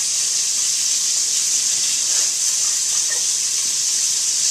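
Sausage frying in a pot, a steady high sizzle.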